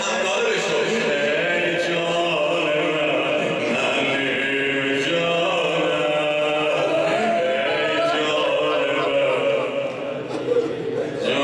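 A male reciter chanting a Persian mourning elegy in a drawn-out, wavering melody, with a brief break near the end.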